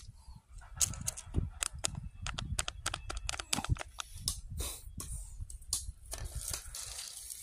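Irregular crackling and clicking of dry leaves and straw being trodden or handled, over a low rumble on the microphone.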